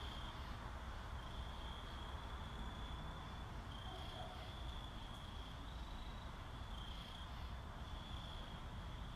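A cricket trilling in high, steady stretches of about a second with short breaks between them, over a faint low background rumble.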